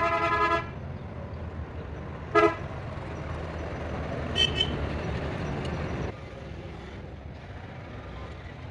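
A vehicle horn tooting over a running engine: one longer blast, then a short toot and a quick double toot. The engine's low running sound drops off about six seconds in.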